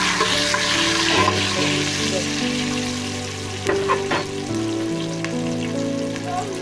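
Red palm oil frying and sizzling in a hot pot as it is stirred, with the sizzle strongest in the first half and a few sharp utensil knocks around the middle. Background music plays underneath.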